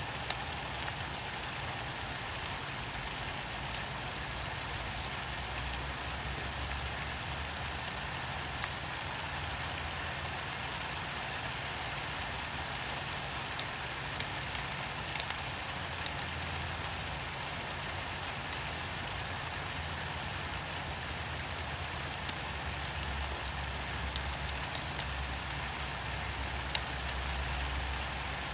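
Steady rainfall with scattered sharp drip ticks. A low rumble runs underneath and swells now and then.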